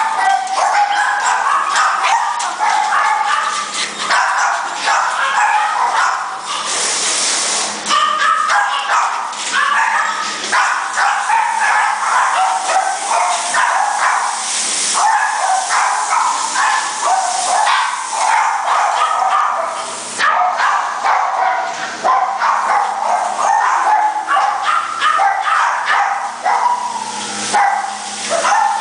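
Many kennelled dogs and puppies barking and yapping at once, an unbroken overlapping din of high-pitched barks, with a brief harsh rushing noise about seven seconds in and again around fifteen.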